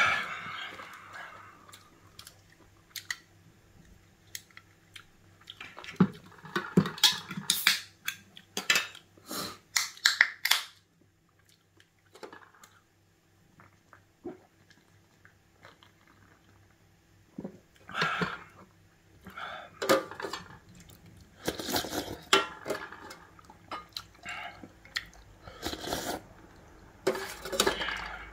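Metal spoon clinking and scraping against a thin aluminium ramen pot, with slurping and chewing of noodles and broth, in clusters with a quieter stretch midway.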